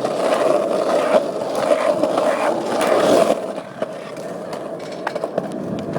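Skateboard wheels rolling on concrete: a steady, loud rumble that drops off about three seconds in, followed by scattered clicks and knocks.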